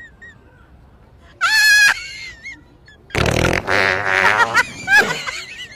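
Fart noises from a remote-controlled fart machine: a short high squeal about one and a half seconds in, then a longer, louder raspy fart from about three seconds in that ends in a brief squeak.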